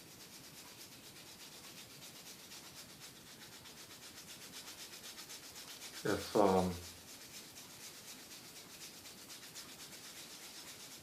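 Quick, even scratchy strokes of an iPod logic board being scrubbed while wet with alcohol cleaner, to clear liquid-damage residue. A brief spoken sound about six seconds in.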